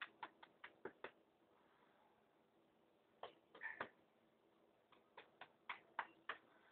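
A hand slapping and patting a greyhound's back and rump in quick runs of sharp pats: about six in the first second, a few more midway, and another run of about six near the end.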